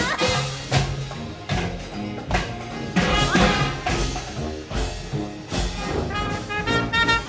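Music with a steady drum beat and a bass line; a higher melody comes in near the end.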